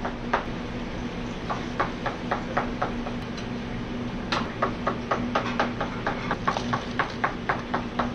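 Commercial kitchen background: a steady hum under a series of sharp clicks and taps, scattered at first and then coming about four a second in the second half.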